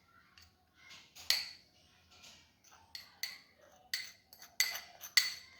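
A metal spoon clinking and tapping against a metal bowl as amaranth flour is spooned in: about seven sharp, ringing clinks, the loudest near the end.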